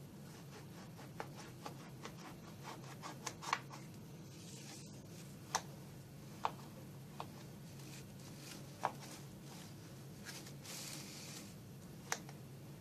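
A knife cutting a soft semolina cake into slices in an aluminium tray: a handful of sharp clicks where the blade meets the metal, with brief soft scraping and rubbing between them.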